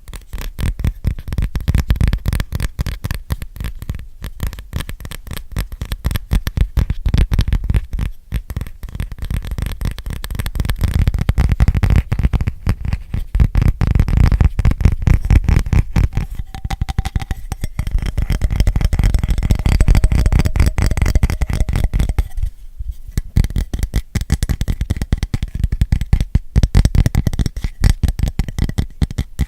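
Fast finger tapping on an object held close to the microphone: a dense, rapid run of many taps a second with deep thuds under them, pausing briefly about 23 seconds in.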